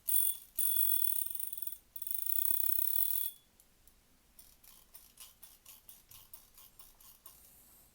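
The mechanical alarm of a 1930s Junghans alarm pocket-watch movement, now worn as a wristwatch, ringing high and shrill. A brief ring is followed by two long rings of about a second each with a short break between them, then faint irregular clicks that fade away.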